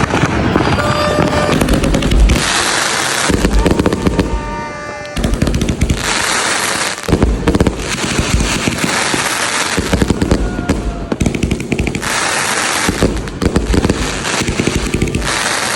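A 100-shot NightCrawler firework cake firing continuously: rapid launch thumps and bursting reports, broken by several dense stretches of crackling, each about a second long.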